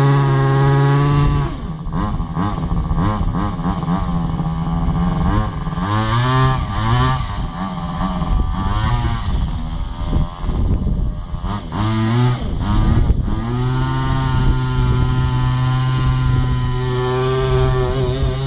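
Small two-stroke petrol engine of a 1:5 scale RC monster truck, running steadily at first, then revving up and down repeatedly as it drives, and settling back to steady running about fourteen seconds in.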